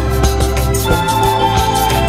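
Background music with a steady beat under sustained held notes; a higher held note comes in about a second in.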